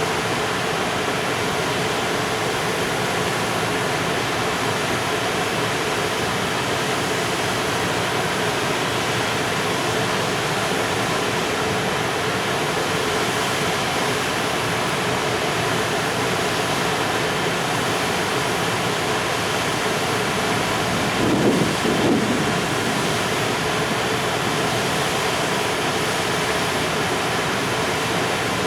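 Container freight train rolling past, wheels on the rails making a steady rushing noise with faint steady tones running through it. About 21 seconds in there is a brief louder double bump.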